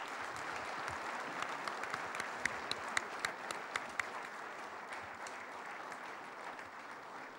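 Audience applauding: a dense patter of many hands, with single sharp claps standing out over the first four seconds and the applause easing off slightly toward the end.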